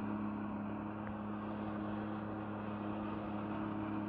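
Jet ski engine running at a steady throttle, a constant hum that does not change in pitch, pumping water up the hose to drive a flyboard.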